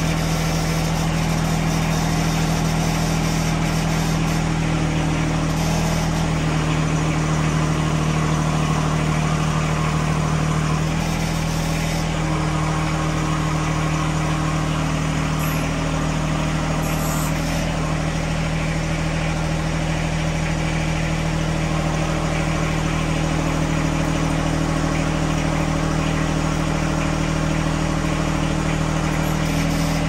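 Tractor engine running steadily near idle, its note shifting slightly a few times.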